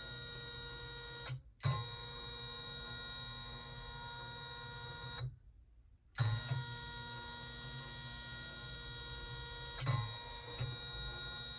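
Steady electrical whine and hum of a powered-on Janome embroidery machine standing idle, not stitching. The sound cuts out briefly about a second in and again for about a second near the middle, and each restart begins with a soft thump.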